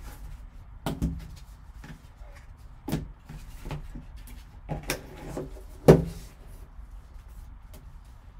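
A cardboard card box, its foam insert and a plastic-cased trading card handled with gloved hands: a few dull knocks and clacks, the loudest about six seconds in, with light rustling between.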